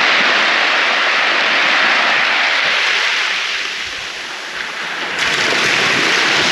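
Waves washing onto a beach: a steady rushing hiss that eases slightly about four seconds in and swells again about a second later.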